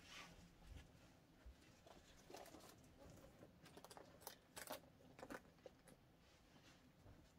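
Faint handling noises: soft rustling with a few light clicks and taps, clustered a little past the middle, as small bags and wallets are moved and set down.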